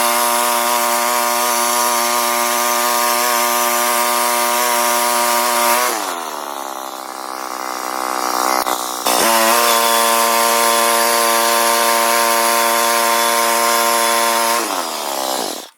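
Gas-engine bandsaw mill running at full throttle through a test cut on a small log, the blade hissing in the wood over the engine's steady drone. About six seconds in the engine slows with a falling pitch. About three seconds later it is abruptly back at full speed, then it winds down and stops near the end.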